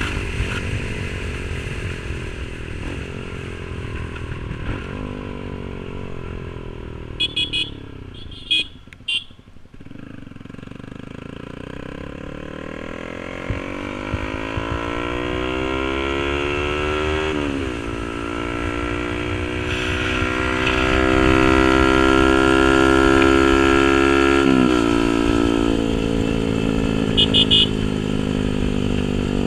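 Yamaha R15 V3's 155 cc single-cylinder engine through an SC Project aftermarket exhaust, revs falling as the bike slows, then accelerating hard in long rising pulls with quick drops at two gear changes. A few short horn beeps sound about a quarter of the way in and near the end.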